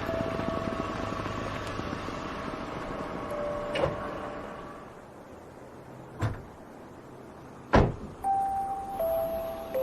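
A steady low rumble with faint held tones fades about halfway. It is followed by three sharp knocks, the last the loudest. Then a few held tones step down in pitch.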